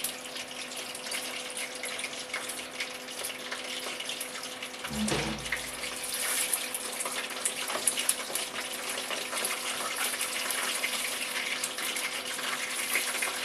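Battered chicken nuggets deep-frying in hot oil in a pot, a steady sizzle with fine crackling. A faint steady hum runs underneath, and there is a brief low thump about five seconds in.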